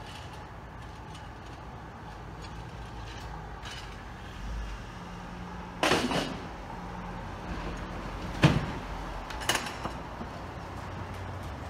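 Steady low hum of street traffic, broken by three sharp knocks in the middle, the second one the loudest.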